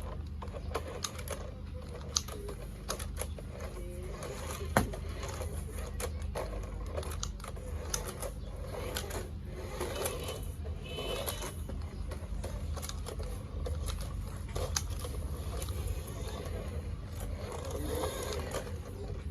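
Battery-powered toy RC car running: its small electric motor and plastic gearbox buzz steadily, with irregular clicks and rattles and a few sharper knocks.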